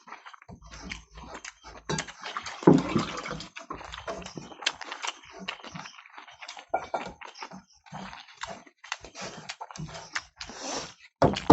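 Rice and curry being eaten in a hurry: a rapid, irregular run of wet chewing, smacking and squelching sounds.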